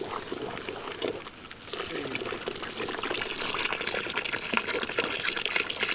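A stream of liquid poured from a plastic bottle into a pot of plant-dye water, splashing into the liquid already there. It gets stronger about halfway through.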